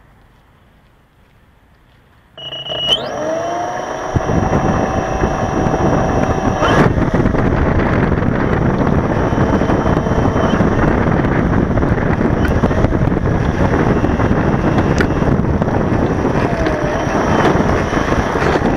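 Sebart PC-21 RC model's electric motor and propeller heard from the onboard camera: quiet for about two seconds, then the motor starts with a high whine that glides upward and runs up to a loud, steady drone mixed with propeller wash and wind on the microphone as the model rolls along the runway.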